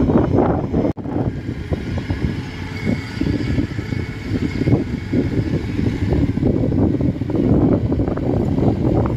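Engine of a motorised rice-hauling cart loaded with sacks of rice, running as the cart drives across the stubble field, with wind buffeting the microphone. The sound briefly cuts out about a second in.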